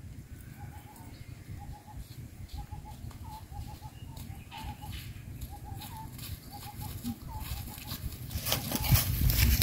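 A bird calling in short repeated notes, two to four at a time, over a low rumble. Louder rustling and knocks come in near the end.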